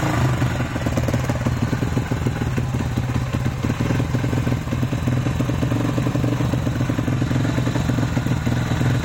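YCF SP1 150 pit bike's single-cylinder four-stroke engine running steadily on a newly fitted Keihin PE28 carburettor, warming up with its idle not yet set.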